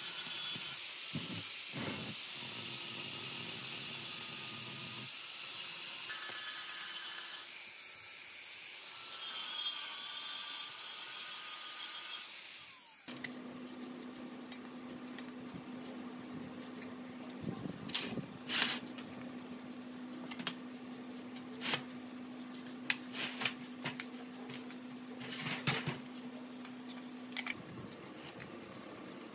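Angle grinder grinding down a weld on a cracked spoke of a compressor belt pulley, a loud steady whine that cuts off abruptly about 13 seconds in. After that, a brush scrubbing a compressor crankcase and head in a tray of cleaning liquid, with light swishing, splashes and scattered clicks.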